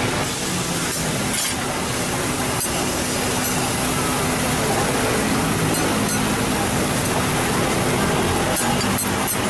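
Steady sizzle of meat and vegetables frying on a teppanyaki steel griddle, with a few sharp metallic clinks of the steel spatulas, several of them near the end.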